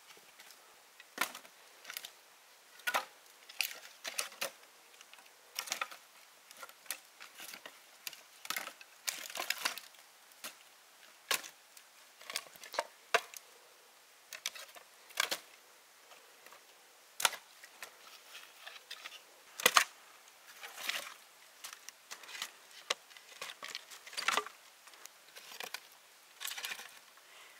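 Irregular sharp clicks and light knocks of objects being handled, scattered about one or two a second with uneven gaps.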